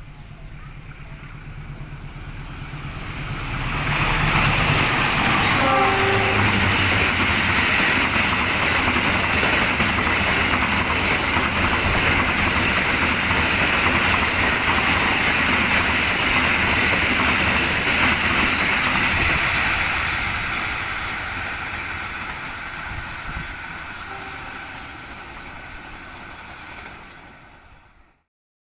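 Passenger train pulled by a CC 206 diesel-electric locomotive passing close by: the rumble and rail noise swell within a few seconds, stay loud for about a quarter of a minute as the carriages roll past, then fade away before the sound cuts off abruptly near the end.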